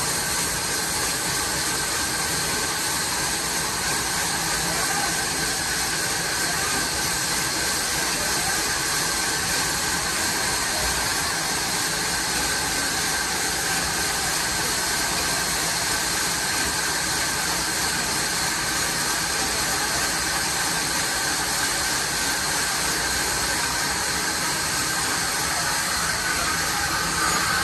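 Horizontal band sawmill running with its blade cutting through a log: a steady hiss of sawing with a faint high whine that holds even throughout.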